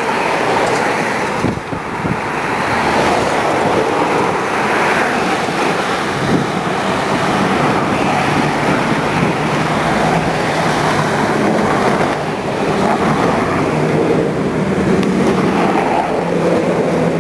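Steady rushing noise of traffic passing on the roadway alongside, mixed with wind on the microphone from riding a bicycle.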